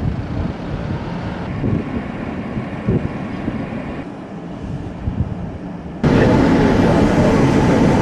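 Outdoor rumble with wind buffeting the microphone. It changes abruptly a few times and jumps suddenly louder about six seconds in.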